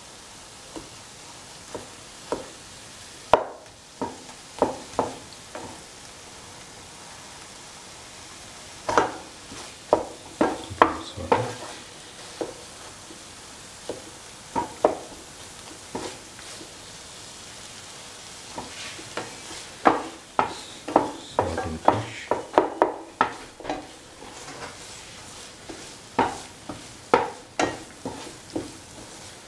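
Spatula stirring, scraping and knocking against a non-stick pan while sautéing a thick coconut and tomato masala, in irregular runs of strokes with pauses between, over a steady low sizzle.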